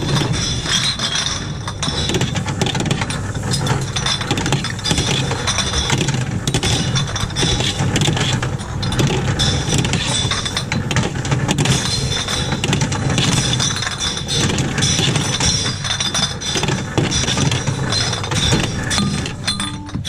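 Plastic drink bottles crackling and clattering as they are grabbed from a trolley full of empties and fed one by one into a reverse vending machine, over the steady whir of the machine's intake mechanism.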